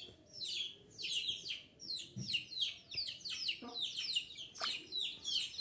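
Small birds chirping over and over: many short, high chirps, each falling in pitch, a few a second.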